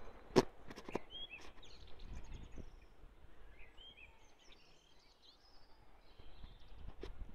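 Birds chirping in short calls over a low steady outdoor rumble, with a few sharp knocks in the first second, the loudest about half a second in.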